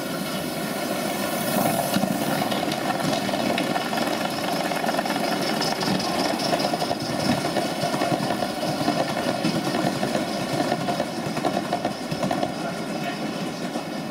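Model trains running on metal track, a steady rumble of wheels on rail that grows a little louder as they pass close by.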